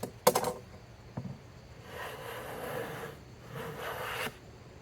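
A short metallic clink, then two strokes of a hand plane shaving across a wooden board: a longer stroke, then a shorter one.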